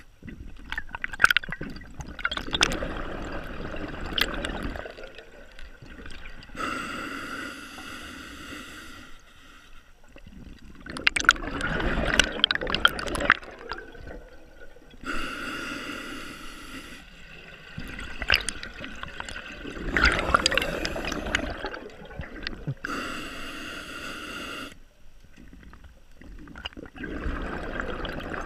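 Scuba diver breathing through an open-circuit regulator. Each breath is an even hiss on the inhale, followed by a louder rush of bubbles on the exhale, repeating about every eight seconds for three full breaths, with another exhale starting near the end.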